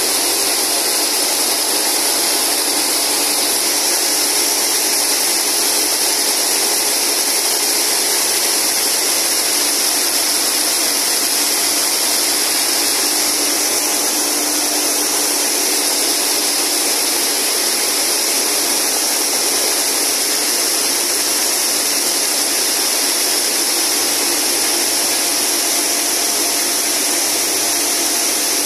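A row of high-speed braiding machines for drawstring cord running together, their thread bobbins circling the machine beds: a loud, steady, high-pitched mechanical whir that does not change.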